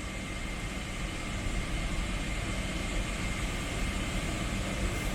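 Steady cabin noise inside a Boeing 777-300: a constant rush of air with a thin, steady high whine running through it.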